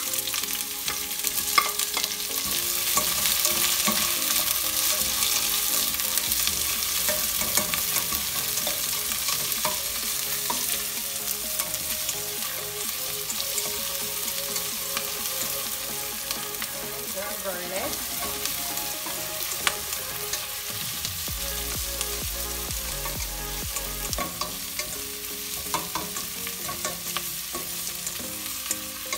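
Diced onion sizzling in hot oil in a stainless steel pan, stirred with a plastic slotted spatula that clicks and scrapes against the pan. The sizzle is loudest in the first few seconds, just after the onion goes in, and eases a little after.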